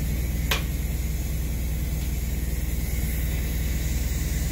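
Steady low machinery hum with an even hiss underneath, unchanged as the TIG welding starts. One short sharp click about half a second in.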